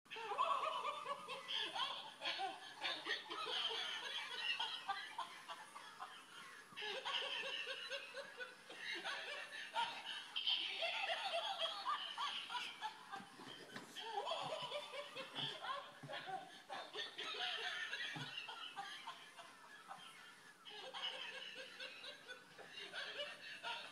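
A person laughing on and off in repeated bursts every few seconds.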